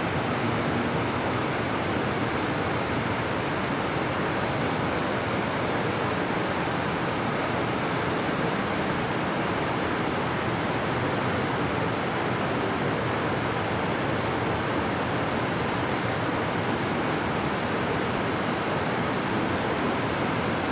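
Steady, even hiss with no pattern or break, as loud as the talk either side.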